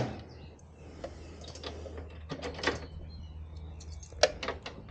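Hands refitting the boat's bow receiver bar and its lock: a few scattered light clicks and knocks of metal parts being handled, the sharpest about four seconds in.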